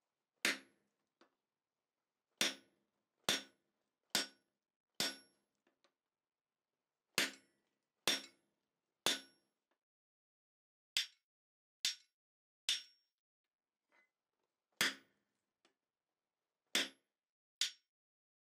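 Hammer blows on a handled top fuller driving into a red-hot steel bar on an anvil, forming sloped shoulders. About fourteen sharp ringing strikes come in short runs of up to four, with pauses between the runs.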